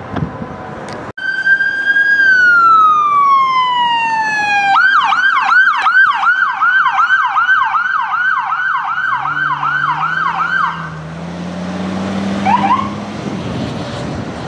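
Electronic siren of a responding emergency vehicle: it starts suddenly with a wail falling in pitch, then switches to a fast yelp of about three sweeps a second, which cuts off after about six seconds. A heavy vehicle's engine then rises in pitch as it accelerates, with a brief double chirp.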